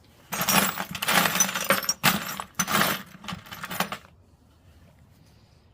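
Loose metal bolts, screws and washers clattering and jingling as a hand rummages through them in a bucket, for about four seconds before it stops.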